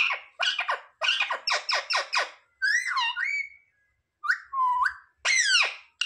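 Indian ringneck parakeet calling: a rapid run of short, harsh chattering calls, then a few longer calls that waver and glide in pitch, the last one falling.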